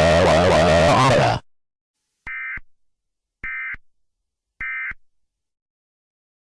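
Emergency Alert System End-of-Message data tones: three short bursts of digital data tone about a second apart, signalling the end of the alert. Before them, a loud, dense sound cuts off abruptly about a second and a half in.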